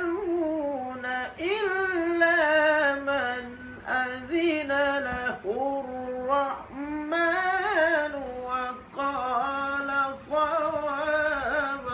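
Melodic Quran recitation (tajweed): a single voice draws out long, ornamented notes that waver and glide in pitch, with brief breaths between phrases.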